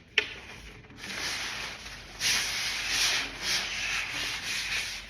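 Packaging being rubbed and pulled off a figure during an unboxing: a sharp click just after the start, then scratchy rubbing that grows louder about two seconds in and goes on in uneven strokes.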